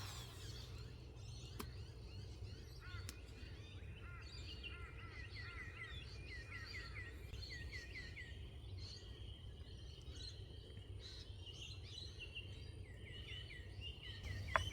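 Birds calling faintly in the background, with runs of quick, repeated chirps, over a low steady outdoor rumble.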